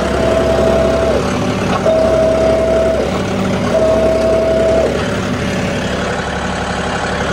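Diesel tractor engine running steadily under work. Over it a steady high-pitched tone sounds three times, each about a second long with short gaps between.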